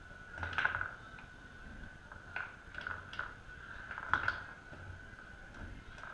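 Foosball game in play: the ball and the plastic men and rods knocking and clacking, a cluster of knocks about half a second in, a few more in the middle, and a sharp knock about four seconds in, over a steady high hum.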